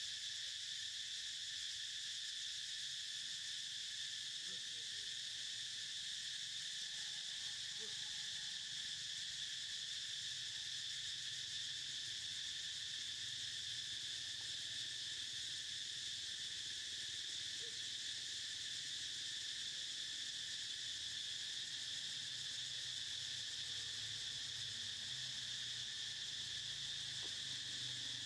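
Insect chorus in a forest: a continuous high-pitched drone at two steady pitches, the higher one louder, with a faint low hum underneath that grows slightly near the end.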